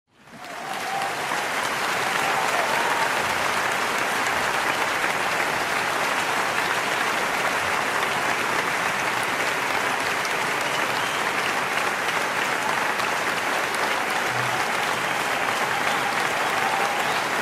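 An audience applauding, fading in over the first second or two and then holding steady.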